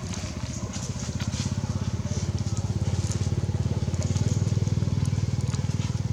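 A small engine running with a rapid, even putter, growing louder about halfway through.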